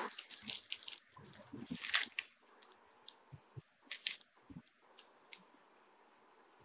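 Plastic bags of candle wax flakes and metal wick tabs crinkling and rustling as they are handled: a dense run of crackles for about two seconds, then a few scattered clicks.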